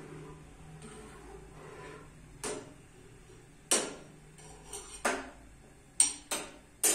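Metal spoon clinking against a steel saucepan while stirring: about half a dozen sharp clinks at uneven intervals, the first about two and a half seconds in.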